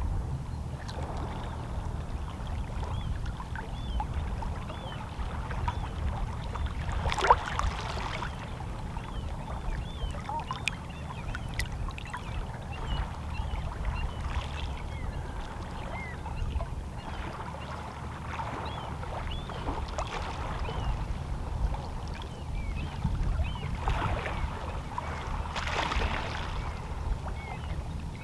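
Small, calm sea waves lapping and splashing against shoreline rocks over a steady low rumble of the sea, with a sharper splash about seven seconds in and a cluster of splashes near the end.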